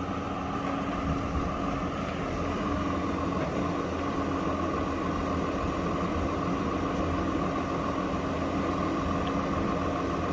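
Farm tractor's diesel engine running steadily, with a steady whine over the low engine note.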